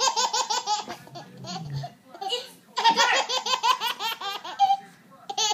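Baby giggling hard in quick, repeated laughs, in two long bouts: one at the start and another from about three seconds in.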